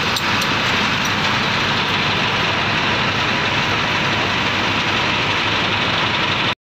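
Parked fire truck's diesel engine running steadily, a loud even drone; it cuts off abruptly near the end.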